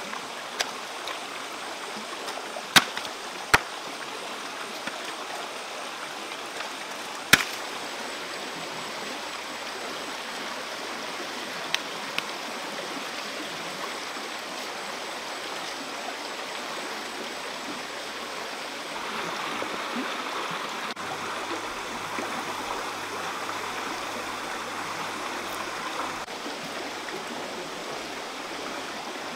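Steady rush of flowing stream water, with three sharp clicks or knocks in the first several seconds.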